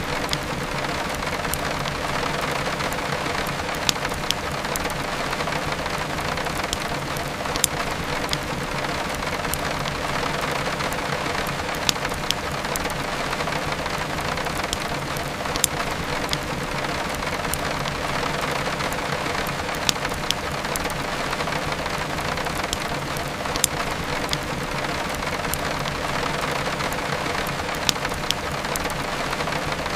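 Steady heavy rain falling, with sharp crackling pops from a burning wood fire every few seconds.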